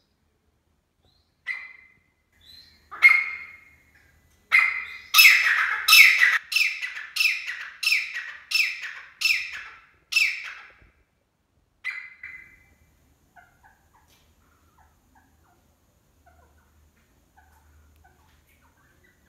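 Grey francolin calling: a few single sharp notes, then a fast loud series of about ten shrill notes in a row, each dropping in pitch, trailing off into a last note and a few faint soft notes.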